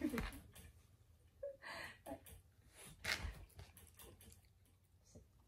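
A few short, breathy huffs and snorts from a black Shiba Inu, spaced a second or more apart, the first with a brief falling grumble.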